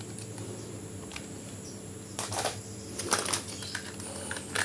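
Faint handling noise: a few soft rustles and light clicks over a steady low hum.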